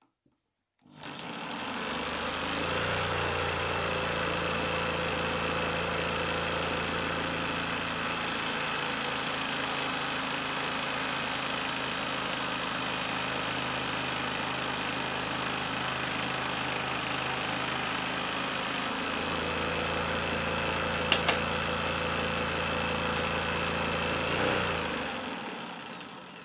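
A corded HiKOKI drill drives a homemade wooden scroll saw. The motor whines up to speed about a second in and runs steadily while the saw blade strokes up and down, cutting a piece of wood in the middle part, with a sharp click a little past three quarters of the way through. The drill then winds down and stops near the end.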